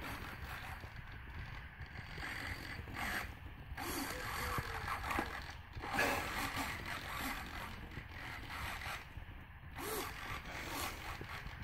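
Small servos of a two-axis pan-and-tilt camera mount whirring in short, irregular bursts as the cockpit FPV camera is swung about.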